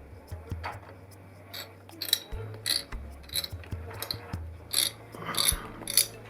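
CPU cooler mounting screws being turned in by hand tool, started gently and left loose: a string of irregular small metallic clicks and scrapes, over soft background music.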